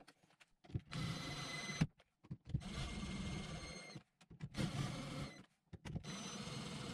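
Cordless drill-driver running in four short bursts, each a second or so long with a steady whine, driving screws into a shower valve's mounting plate.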